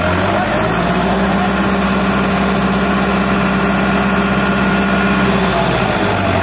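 Farmtrac 6055 tractor engine running steadily under load while pulling and driving a working super seeder, with a steady high whine over the engine note.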